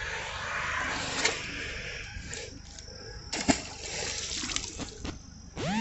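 Creek water splashing as a bass is released back into it, strongest over the first couple of seconds, with a few light knocks later on.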